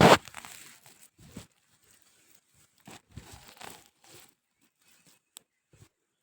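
Crunching and rustling as soil and potato plants are handled during the harvest: a loud crunch right at the start, then scattered quieter crackles and rustles.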